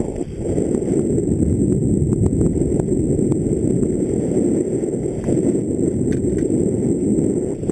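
Mountain bike descending a dirt singletrack at speed: a dense, steady low rumble of wind buffeting the helmet-mounted camera's microphone and tyres running over dirt, with scattered faint clicks.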